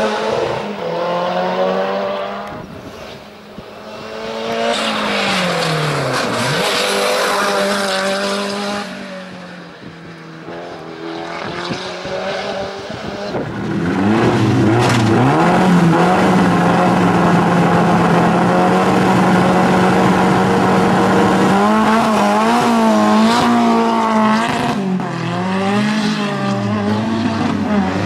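Hill-climb race car engine working hard through the gears, its pitch climbing and dropping as it passes and brakes for a bend. Then, on the start line, it is held at steady high revs for several seconds, blipped, and rising and falling again as the car launches.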